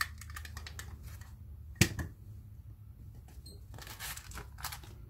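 Hands handling a pistol magazine and its plastic speed loader: scattered light clicks and rattles, with one sharp clack about two seconds in.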